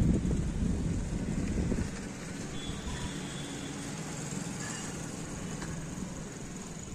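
Wind rumbling on a handheld phone's microphone as a bicycle is ridden along a dirt lane. It eases off after about two seconds, leaving a faint, steady street background.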